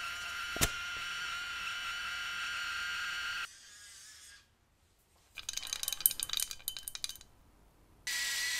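A gas torch hissing steadily with a faint whistle in it as it heats the boiler shell, with one sharp tick about half a second in; it cuts off about three and a half seconds in. After a short pause comes a quick run of small metallic clinks and rattles lasting about two seconds. The torch starts hissing again near the end.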